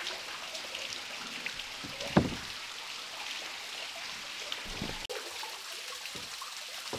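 A small waterfall trickling and splashing down a rock face into the river, a steady hiss of falling water. A single sharp knock about two seconds in, and softer low thumps later on.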